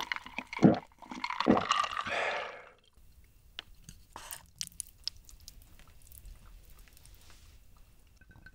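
Two loud gulping swallows of a drink from a glass jar, followed by a breathy exhale. Faint clicks of chopsticks and a ladle against the food and dishes follow in the quiet that remains.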